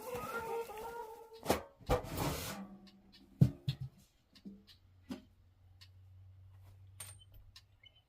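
Chickens clucking for about a second, then a few sharp knocks and a short clattering rustle, followed by a faint steady low hum.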